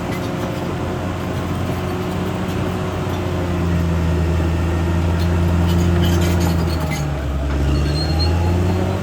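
Caterpillar D6R XL bulldozer's diesel engine running steadily with a low hum, growing louder from about three and a half seconds in, dipping briefly near the end and then picking up again.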